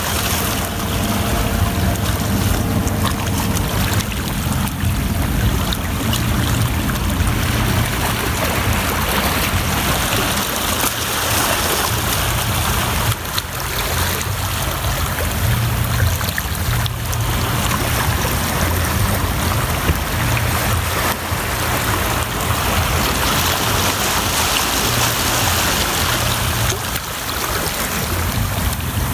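Small waves washing and foaming over shoreline rocks, a steady rushing of water, with wind buffeting the microphone in a low, fluctuating rumble.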